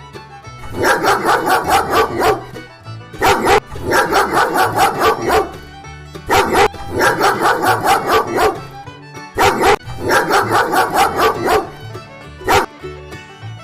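Dog barking in four rapid runs of barks, each run about two seconds long, then a single bark near the end.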